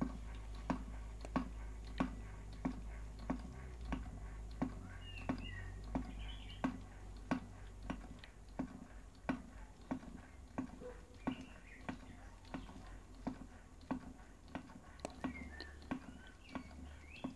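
Small Stirling engine running on the cold of the ice beneath it, its mechanism giving a light, evenly spaced click about every two-thirds of a second as the flywheel turns.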